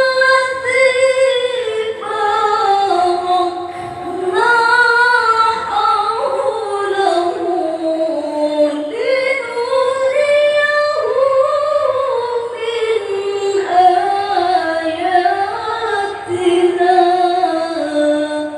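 A single high voice reciting the Quran in melodic tilawah style. It draws out long, ornamented phrases that waver and mostly fall in pitch, with short breaths between them.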